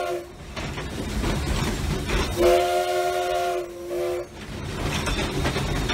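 Steam locomotive chime whistle blowing several notes at once. One blast ends just after the start, and another sounds about two and a half seconds in for nearly two seconds, with a brief break near its end. The locomotive's steady running noise continues between the blasts.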